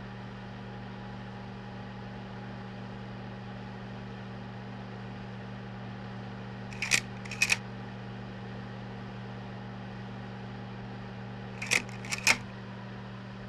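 A projector's steady hum, broken twice by a pair of sharp mechanical clicks about half a second apart: once about seven seconds in and again about twelve seconds in.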